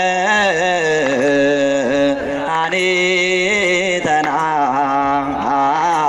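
A single voice singing a melismatic religious chant, with long held notes that bend and waver in ornamented runs.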